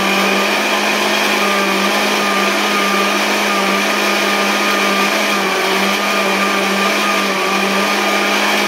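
Electric countertop blender running steadily, puréeing peeled guava with water into a smooth liquid. It is a constant motor drone: a low hum with fainter whining tones above it.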